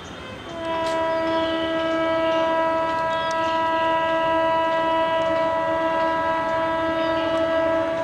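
Electric locomotive's air horn sounding one long, steady blast that starts about half a second in and is held for more than seven seconds.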